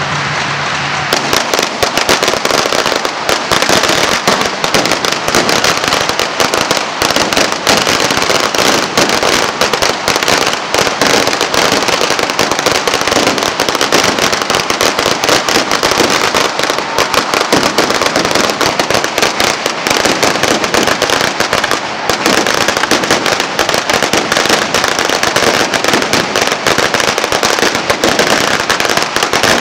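A long string of Chinese firecrackers going off in a rapid, unbroken crackle of bangs, starting about a second in, with a brief lull a little after twenty seconds.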